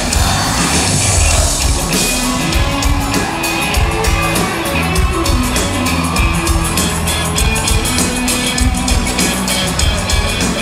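A live band playing loud pop-rock, with a drum kit keeping a steady beat under bass and electric guitar, and some crowd shouting.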